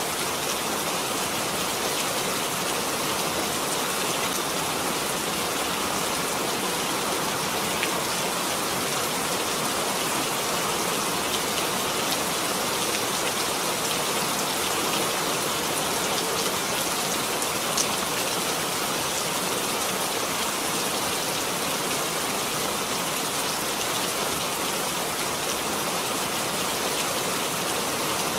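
Steady rainfall, an even hiss of drops with a few louder drips here and there.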